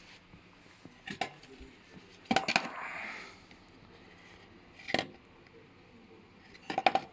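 A few sharp metallic clinks and clatters in short clusters, about a second in, a little after two seconds, near five seconds and near the end, as of hard metal objects being handled.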